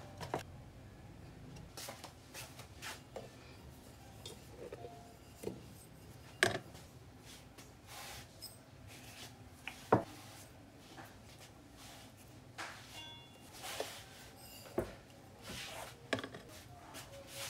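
Kitchen bowls being handled while flour is tipped from a small bowl into a stainless steel mixing bowl: soft scraping and tapping, with two sharp knocks of a bowl against the scale or mixing bowl standing out.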